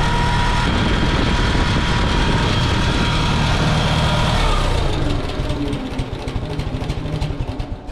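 International Harvester C123 four-cylinder engine of a Farmall 140 running with its valve cover off and the rocker arms exposed. About five seconds in it falters: the firing turns uneven and thins out as the engine stalls near the end.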